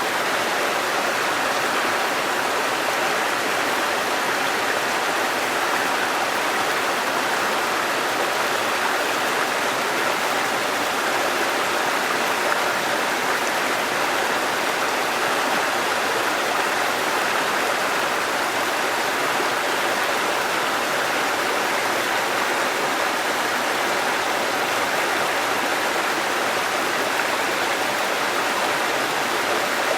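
Waterfall and running water rushing with a steady, even hiss and no breaks.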